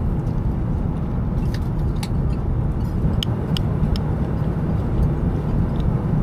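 Steady airliner cabin noise in flight, a dense low rumble. A few light clinks of a metal spoon against a bowl come between about one and a half and four seconds in, as a meal is stirred and eaten.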